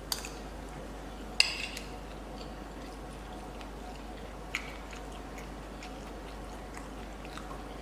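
Cutlery clinking against dishware during a meal: a light click at the start, a sharper clink with a brief ring about a second and a half in, and another small click about four and a half seconds in, over a steady low room hum.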